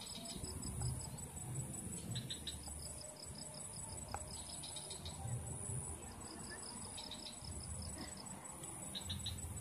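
Insects chirping outdoors: fast, high-pitched pulsed trills that come in short runs every couple of seconds, over a steady thin high whine and a low, uneven rumble.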